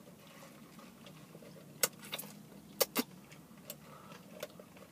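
Low steady hum of a car's cabin, broken by several short sharp clicks and taps, the loudest two close together about three seconds in.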